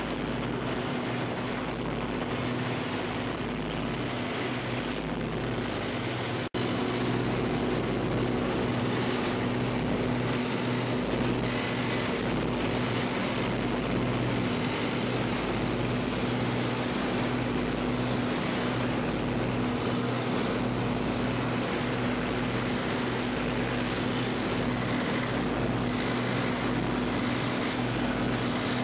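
A motorboat's engine running at a steady cruising speed, a constant drone over the rush of water and wind past the hull. The sound cuts out for an instant about six and a half seconds in and comes back slightly louder.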